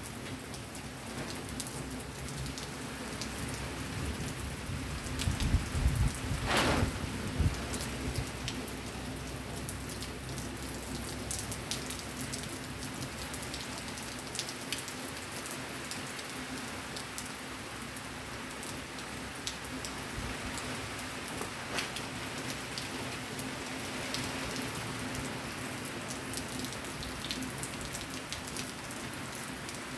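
Steady rain falling, with many small drop hits close by. About five to seven seconds in there is a brief, louder low rumble.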